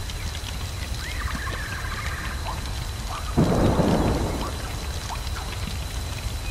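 Thunderstorm ambience: steady rain over a low rumble, with a sudden thunderclap about three and a half seconds in that rolls away over a second or so. Early on there is a faint high gliding call, one of the soundscape's phoenix calls.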